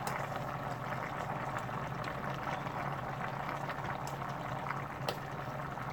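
Steady kitchen background hiss with a constant low hum. Two light clicks come about four and five seconds in, as a spoon scoops seasoning base from a glass jar.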